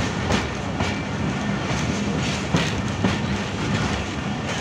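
Passenger train rolling slowly through a station, its wheels clacking over rail joints at irregular intervals above a steady low drone.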